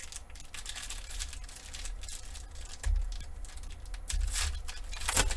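Foil wrapper of a trading card pack crinkling and tearing in irregular bursts as it is opened by hand, loudest near the end, with a couple of dull knocks of handling on the table.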